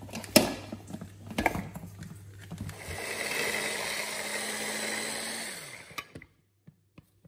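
Electric hand blender with its mini chopper attachment chopping garlic cloves: a few knocks as the motor unit is fitted onto the bowl, then the motor runs steadily for about three seconds and winds down, turning the garlic to a paste.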